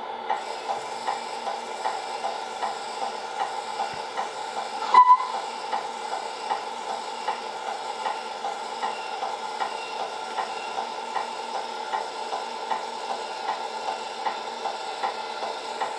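An RC MAN TGX tipper lowering its dump body, with the electric tipping drive and the MFC-03 sound unit's simulated truck engine running together. A regular light tick comes about every two-thirds of a second, and a brief beep sounds about five seconds in.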